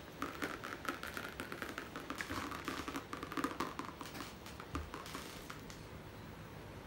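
Rapid light taps and patter as paint is flicked from a plastic squeeze bottle and spatters onto a canvas, thinning out about five seconds in.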